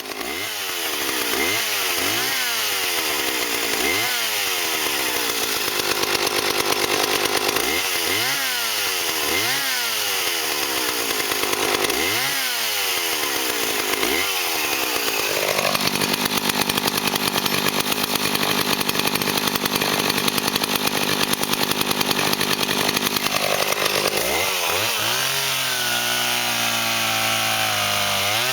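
Vintage Homelite two-stroke chainsaw revved in repeated throttle blips, rising and falling about every two seconds. Then it is held wide open for several seconds. Near the end the revs drop and run lower and uneven.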